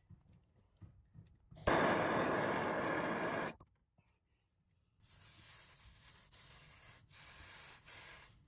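A handheld gas torch fired for about two seconds: a steady hissing rush that starts and cuts off abruptly, then a much fainter steady hiss.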